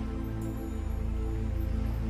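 Soft lounge background music with held, steady chords and a deep bass note that grows louder partway through.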